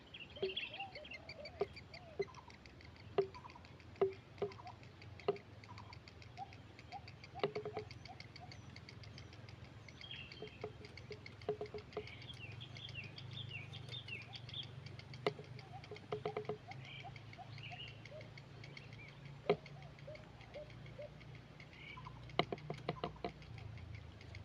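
Grey heron chicks calling at the nest: many short chirping calls mixed with sharp clicks and several quick runs of rapid ticking.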